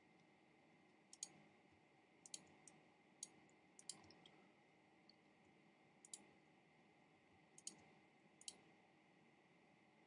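Faint computer mouse clicks, about a dozen, irregularly spaced and several in quick pairs, as pixels are erased and painted in an image editor.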